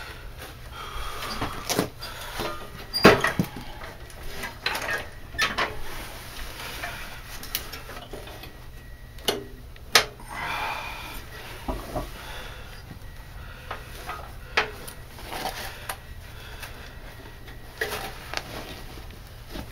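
Irregular metal clanks, clicks and rustling as a new drive belt is forced by hand onto a Toro snowblower's pulley, with a sharp knock about three seconds in and another about ten seconds in.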